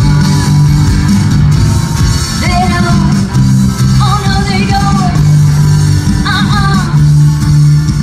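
Live band playing on an outdoor stage: guitars and drums over a steady low bass line, with a woman's singing voice coming in about two and a half seconds in and carrying on through the rest.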